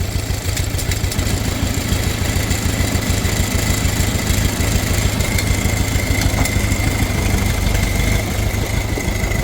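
Case 580CK backhoe engine running steadily as the machine is driven off, with a thin high whine coming in about halfway through.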